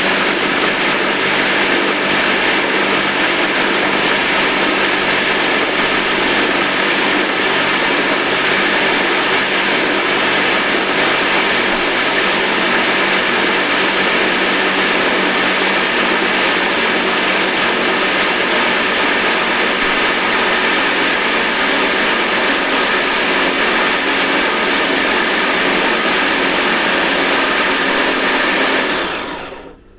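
Ninja Smart Screen blender motor running steadily at speed, blending egg and oil into mayonnaise as it emulsifies. It winds down and stops near the end.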